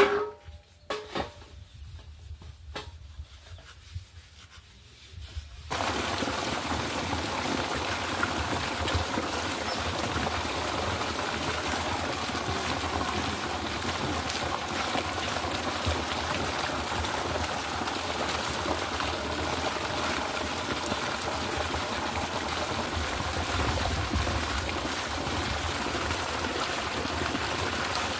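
Water gushing steadily from a hose into a large pot of water, splashing, while small red onions are rinsed by hand. It starts suddenly about six seconds in, after a few faint handling sounds.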